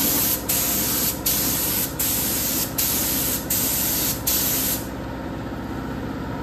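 Gravity-feed spray gun hissing as it sprays clear coat onto a small panel in short passes, with brief breaks about every three-quarters of a second where the trigger is let off at the end of each pass. The spraying stops a little before five seconds in.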